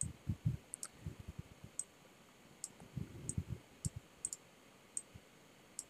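Computer mouse clicking faintly: about ten sharp clicks at uneven intervals, some in quick pairs, with soft low knocks as the mouse is moved on the desk.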